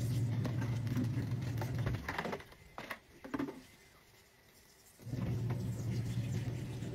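Twin-tub washing machine's electric motor running with a steady low hum, stopping about two seconds in and starting again about five seconds in, as a wash cycle does. Light clatter and knocks in the pause.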